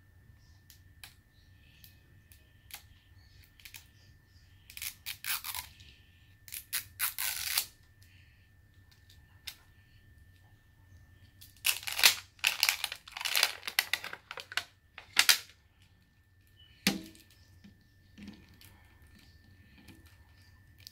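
The wrapper layer of an L.O.L. Surprise toy ball being peeled and torn off in several short bursts of tearing and crinkling, with quiet pauses between, the longest run a little past halfway.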